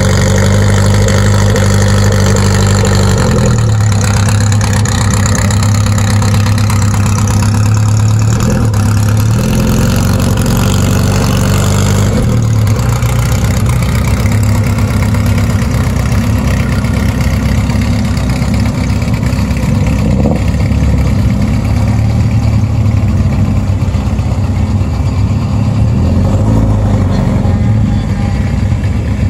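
Classic sports car engines running loudly at idle. The engine note rises and falls in pitch twice in the first twelve seconds, then settles into a rougher low rumble.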